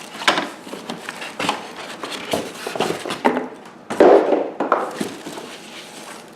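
Vacuum cleaner parts and accessories being lifted out of their box and set down: a string of knocks and clatters, the loudest about four seconds in.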